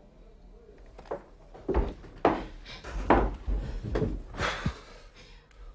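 A handful of irregular dull knocks and thumps with rustling, someone moving about and handling wooden furniture.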